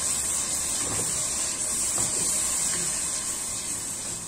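Masala sizzling in hot oil in a cooking pot, a steady hiss, as yogurt is stirred through it with a spatula; the hiss eases off near the end.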